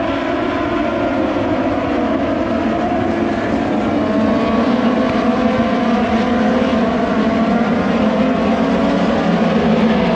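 Moto2 racing motorcycles' Triumph 765 cc three-cylinder engines running hard at high revs, several engine notes overlapping and slowly gliding in pitch, growing a little louder about four seconds in.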